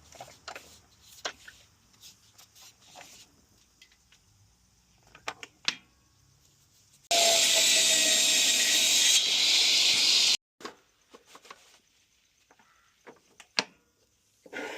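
Wood being worked with tools: scattered light knocks and clicks, then a loud, steady hissing noise of a tool on wood for about three seconds that starts and stops abruptly, then a few more small clicks.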